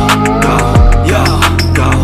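Hip hop backing track between rapped lines: a deep kick drum that drops in pitch, about once a second, with hi-hat ticks and a synth melody.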